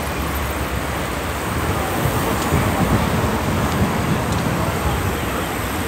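Steady rushing road noise heard from a moving bicycle on a highway: wind and tyre noise, with car traffic passing.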